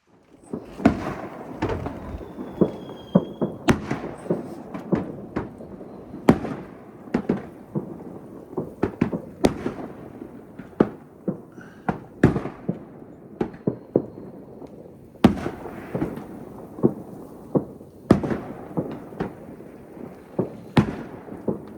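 Fireworks going off: many sharp bangs in irregular succession over a steady crackle, with a brief whistle about three seconds in.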